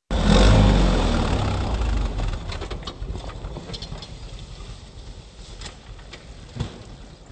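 Quad bike (ATV) engine running loud as it pulls away, then fading steadily as it drives off, with a few sharp clicks later on.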